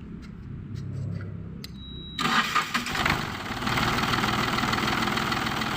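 Yanmar 3TN three-cylinder diesel being started: it turns over and catches about two seconds in, then settles into a steady run. It starts only with the fuel-shutoff solenoid pushed in by hand, the solenoid the mechanic blames for the crank-only, no-start fault.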